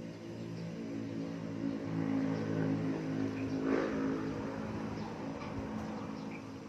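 A motor vehicle's engine running as it passes, growing louder toward the middle and then fading.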